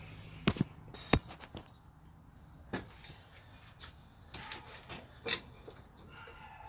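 Irregular sharp clicks and knocks of car body parts and fasteners being handled and fitted, with the two loudest knocks in the first second or so and a cluster of clicks later on.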